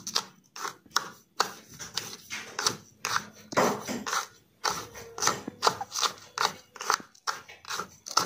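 A stick poking and scraping dry grains through a plastic funnel into a glass bottle, giving irregular scratchy taps and rustles several times a second.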